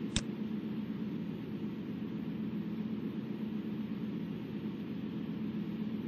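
Steady car engine and road hum, heard from inside the cabin at a constant cruising speed. There is one sharp click about a fifth of a second in.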